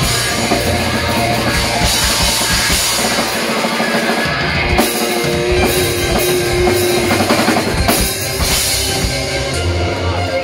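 Live rock band playing: drum kit with cymbals crashing and electric guitars, with one note held for a couple of seconds near the middle.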